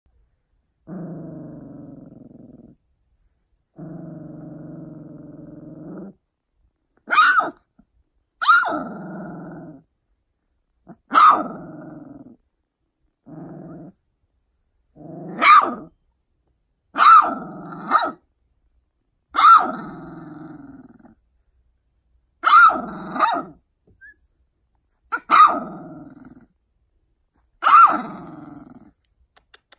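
Two-week-old labradoodle puppy growling, two long low grumbles at first, then about ten short high yelping barks, a second or two apart, each sliding down into a lower grumbling tail. It is a young puppy's angry protest.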